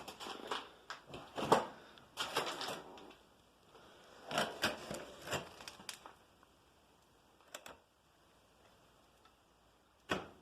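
Irregular knocks, clicks and scrapes from metal parts of an old furnace being worked apart by hand: a busy run of knocks, another cluster a few seconds later, then a quiet stretch broken by two single sharp clicks near the end.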